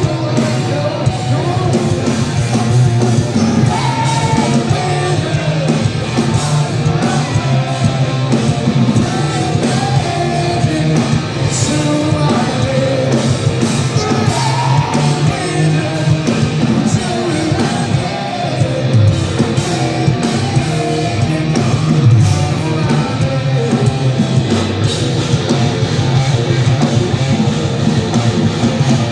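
Hard rock band playing live at full volume: distorted electric guitars, bass and drums, with a singing voice over them.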